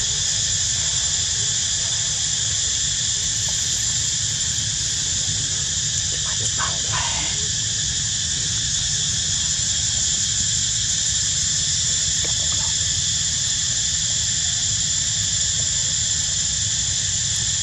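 Steady high-pitched droning of an insect chorus, with one brief gliding squeak about six and a half seconds in.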